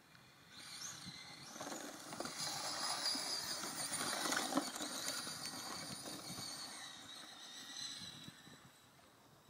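Kyosho DRX RC rally car with a Castle 2650 kV brushless motor driving past: high-pitched motor whine over tyres scrabbling on loose dirt. It builds over the first couple of seconds, is loudest as the car slides past close around four seconds in, then fades as it drives off down the track.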